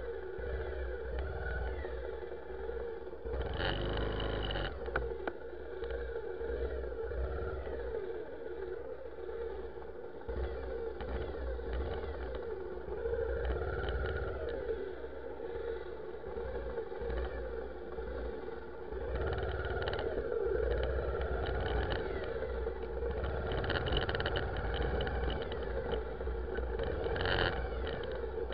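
Motor vehicle engine running steadily with road noise, heard from the moving vehicle. A short louder sound breaks in about four seconds in and again near the end.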